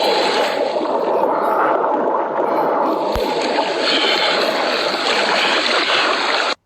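Steady rushing water noise around a kayak, cutting off suddenly near the end.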